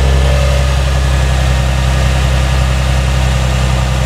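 Infiniti G35 Coupe's 3.5-litre V6 idling steadily, heard from underneath the car.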